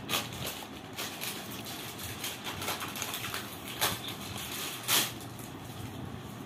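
Crinkling and rustling of a plastic snack packet as it is handled, opened and reached into, with irregular crackles and a few sharper, louder crinkles right at the start and about four and five seconds in.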